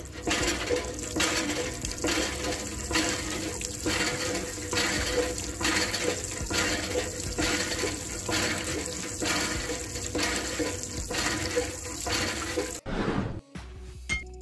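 Water gushing from a miniature hand pump's outlet tube into a small tank, surging about one and a half times a second with the pump strokes, and cutting off suddenly near the end.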